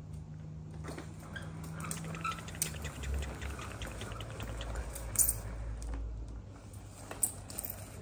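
Small plastic toy wagon rolling over a tiled floor as it is pulled along: a low rumble, strongest from about three seconds in, with scattered light clicks and knocks.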